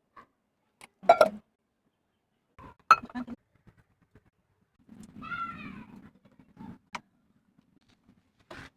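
Spoon clattering and clinking against a bowl while the pakoda batter is mixed after water is added, the loudest clatter about a second in. About five seconds in, a short high call that rises and falls, like a cat's meow.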